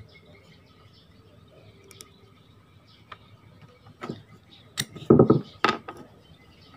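Small hard parts of a Fugu Tora 4000 spinning reel clicking and knocking as it is handled during reassembly: a few faint clicks, then a quick cluster of louder knocks and clatter about four to six seconds in.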